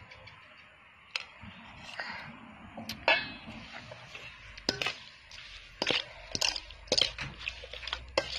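Metal spoon clinking and scraping against a stainless steel mixing bowl as shredded green mango salad is tossed, in irregular knocks that grow louder and more frequent from about three seconds in.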